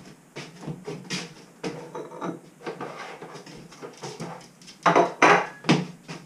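Household objects being handled: scattered knocks, clinks and rubbing, with a few louder clatters about five seconds in.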